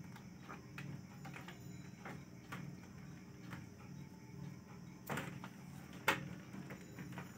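Scattered light clicks and knocks as two kittens play and bat at a pole, with two sharper knocks about five and six seconds in, over a steady low hum.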